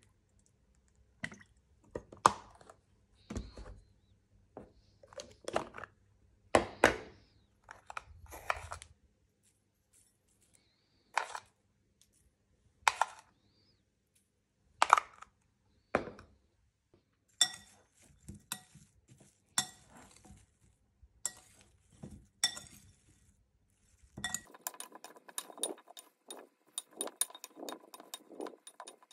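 Separate clinks and knocks of kitchen things being handled around a glass bowl. About five seconds before the end comes a fast run of light clinks, a fork tossing broccoli florets in the glass bowl, sped up to double speed.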